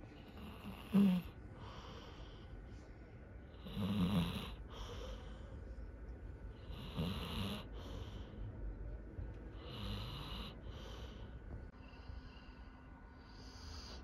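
Labrador retriever snoring in its sleep, a slow snoring breath about every three seconds, the sharpest one about a second in.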